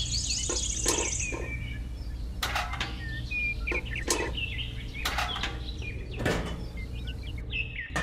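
Birds chirping in short scattered calls, with sharp clicks and knocks of small toy buckets and plastic machine parts being handled, over a steady low hum.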